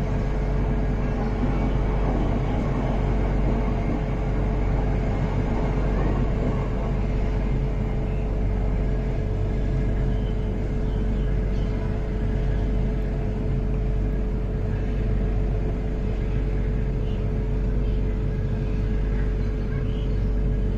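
Passenger train running on the line: a steady rumble of wheels on rail with a constant hum.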